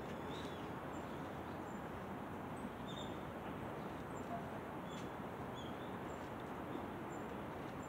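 Steady outdoor background noise with scattered faint, short bird chirps, a few high chirps every second or so.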